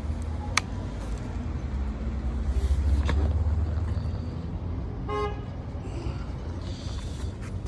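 A low engine rumble that swells about three seconds in and then settles, with a sharp click or two and a short horn-like toot about five seconds in.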